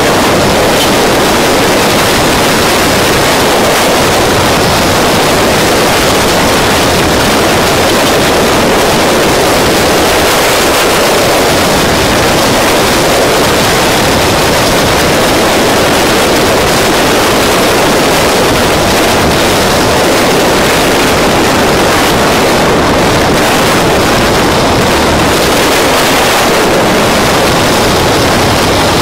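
Loud, steady wind rush on the microphone of an action camera riding on a moving motorcycle.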